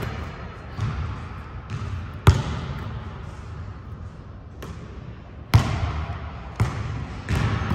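A basketball bouncing on an indoor court at an uneven pace, with the echo of a large gym. The loudest bang comes about two seconds in, with two more sharp bounces late on.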